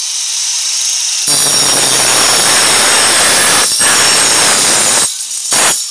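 Angle grinder with a toothed saw blade, mounted in a homemade sliding saw frame, running with a high whine. About a second in the blade cuts into an iron bar with a loud, harsh grinding screech for about four seconds. It stops, then touches the bar again briefly near the end.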